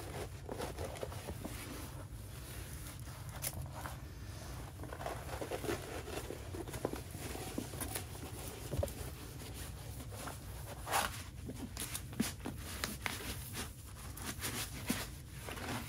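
Crinkling and rustling of a diamond painting canvas, its plastic cover film and paper backing, as it is rolled backwards by hand to straighten it, with scattered soft crackles and taps over a steady low hum.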